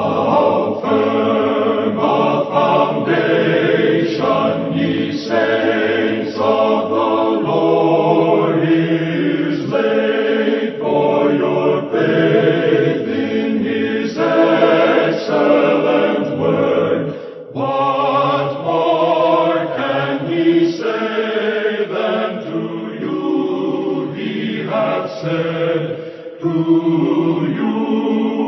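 A choir singing, the notes held and changing about once a second.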